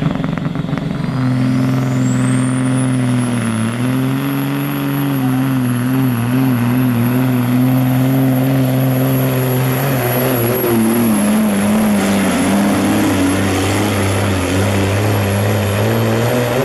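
Diesel semi truck engine running hard under full load while pulling a weight-transfer sled, its pitch dipping and wobbling as the pull goes. A high turbo whine rises steeply over the first few seconds and then holds at a high pitch.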